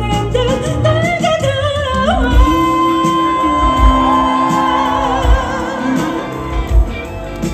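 Female vocal group singing live with a pop band, amplified through a PA. About two seconds in, a voice rises to a long held high note with vibrato that lasts about three seconds.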